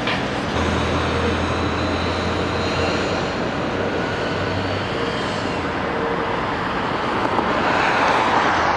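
Outdoor vehicle noise: a steady rumble with a low hum through the first half, and a broader rushing noise that swells near the end as something passes.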